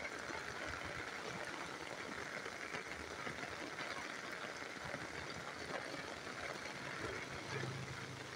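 Heavy rain falling and runoff water rushing over the ground, a steady hiss throughout. A low steady hum joins near the end.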